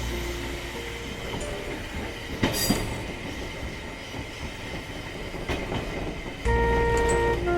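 Train running past on the rails: a steady rumble and wheel noise, with a couple of sharper clacks about two and a half seconds in. Music comes in about a second before the end.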